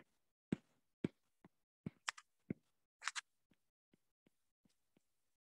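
Stylus tip tapping and clicking on a tablet's glass screen while handwriting numbers: faint, irregular taps, clearer in the first three seconds and fainter after.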